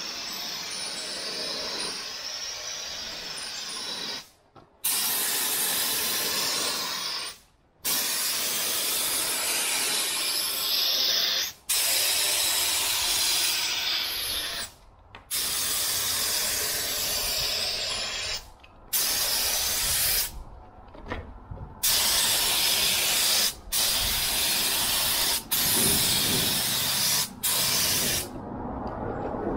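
Top-loading spray gun spraying a light first coat of top coat onto a tractor wheel rim: a steady hiss of compressed air and paint, softer for the first few seconds, cut off sharply about ten times as the trigger is released and pulled again.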